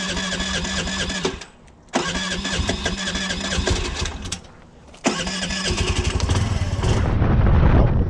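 Honda Navi's electric starter cranking its 109cc single-cylinder engine in three bursts of about two seconds each, with short pauses between. The third burst runs into a loud low rumble near the end as the engine catches.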